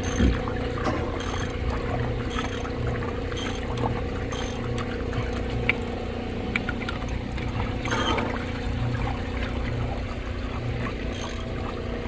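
Water pouring steadily over the hum of a running dewatering pump, which pulses about once a second. A few sharp metallic clicks come from the wrench work on the coupling's nuts.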